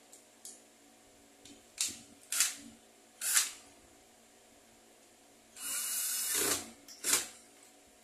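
Cordless drill-driver running in short bursts, three quick pulses and then one longer run of nearly a second, driving in the screws that close an electric fan's motor housing.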